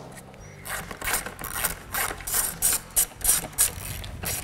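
Hand ratchet clicking in quick strokes, about three a second, backing out the 10 mm bolts that hold a radiator's cooling fan shroud.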